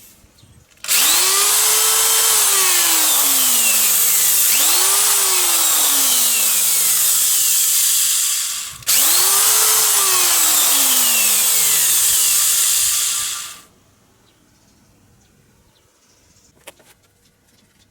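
Ryobi corded electric drill running in two bursts, about seven seconds and then about five. The motor pitch climbs quickly and then slides steadily down three times, under a loud, dense whirring noise.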